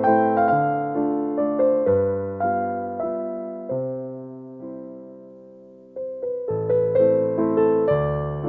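Background piano music: a gentle tune of plucked-sounding notes that die away one by one. It thins out and fades towards the middle, then starts up again about six seconds in.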